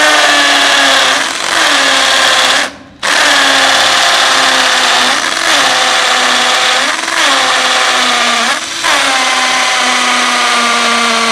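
Xiaomi Mijia Tonfon 12V cordless drill in hammer mode boring into a masonry wall with an 8 mm bit: a steady motor whine that stops once for a moment about three seconds in, its pitch rising briefly about four times. The owner finds the impact action rather slow and weak.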